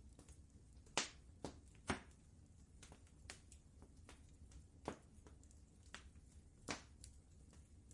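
Wood fire crackling in a fireplace: irregular sharp pops and snaps, loudest about a second in, near two seconds and near the end, over a low steady rumble.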